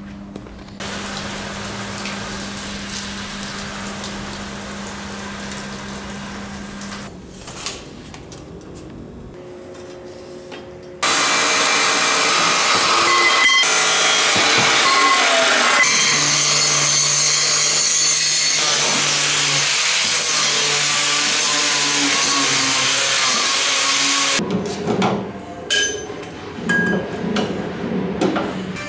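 Abrasive cut-off saw (chop saw) grinding through square steel tubing, a loud steady cut lasting about thirteen seconds that starts about eleven seconds in. Before it, a quieter steady noise runs for about six seconds; near the end come a few knocks of metal being handled.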